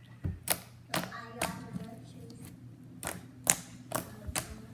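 Slime being poked with fingers: a run of sharp, irregular clicks and pops.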